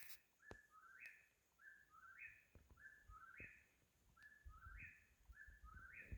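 A bird faintly calling over and over, an unidentified caller. It repeats the same short whistled phrase about once a second: a flat note, then a higher note that slides up at the end.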